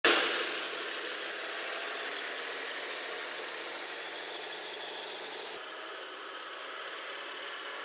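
Engines of heavy multi-axle military trucks running steadily as a convoy rolls slowly past.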